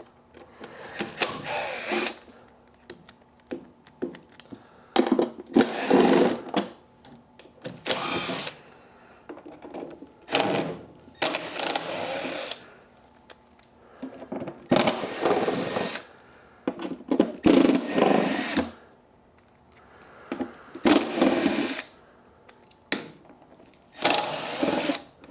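Power driver running in short bursts, each about a second long, about nine times with pauses between: the screws holding the cover on a JET helical head planer being backed out.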